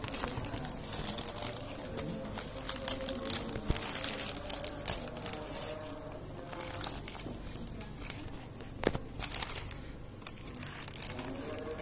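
Paper food wrapping of a takeaway rice packet being unfolded and handled. It crinkles and rustles with many irregular sharp crackles.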